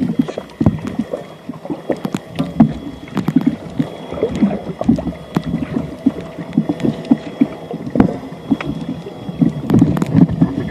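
Water sloshing and bubbling in uneven surges, with many sharp clicks and knocks scattered through it and a faint steady high whine behind.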